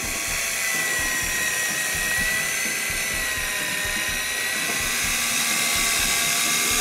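Electric fishing reel's motor winding in line with a steady high-pitched whine, the rod bent under the load of a hooked squid.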